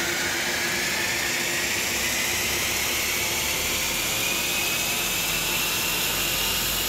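2020 Ford Explorer ST's twin-turbo 3.0-litre V6 under full load on an all-wheel-drive chassis dyno, a wide-open-throttle power run. The noise of engine and rollers holds steady while a whine rises slowly in pitch as the revs climb.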